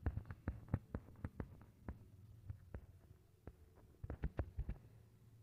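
Faint, irregular soft clicks and taps. A quick run of them comes in the first second and another cluster about four seconds in.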